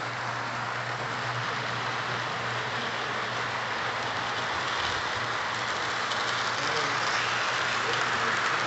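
Lionel O-gauge model train, a 4-4-0 General-type steam locomotive pulling freight cars, running on three-rail track: a steady rumble and clatter of wheels on the rails, with a low hum underneath that fades about halfway through.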